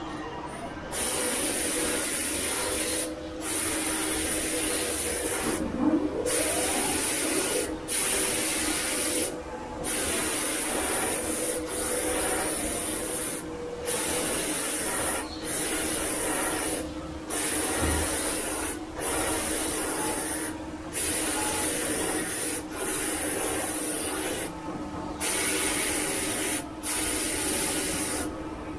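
Automatic crystal pendant-making machine running: a loud hiss that cuts out briefly and comes back in a regular cycle, about every two seconds, over a steady machine hum.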